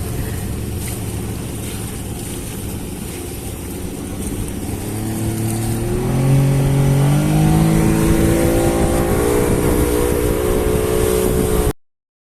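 Fishing boat engine running, then opened up from about five seconds in, its pitch climbing in steps as it gets louder. The sound cuts off abruptly near the end.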